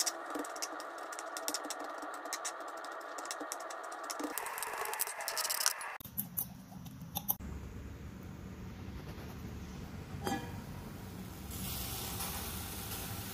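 Rapid light clicking and tapping of a knife on a plastic cutting board. About six seconds in this gives way to low rumbling handling noise as chopped tomato and onion are mixed by hand in a bowl. Near the end a steady hiss starts from the pot of leaves cooking on the stove.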